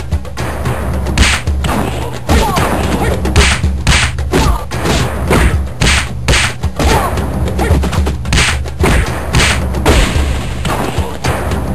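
Kung fu fight sound effects: a rapid series of sharp punch and kick hits over a steady low musical background.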